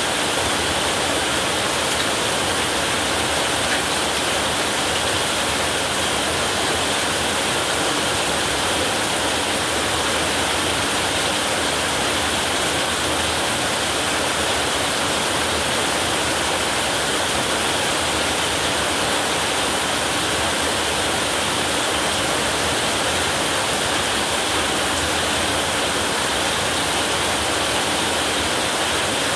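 Heavy rain pouring steadily on a roof, an even, unbroken hiss.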